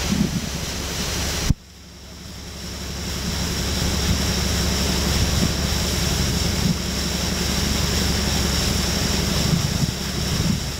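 Steady wind noise on the microphone with a low rumble underneath. It is cut off abruptly about one and a half seconds in, and the same noise then fades back up over the next couple of seconds.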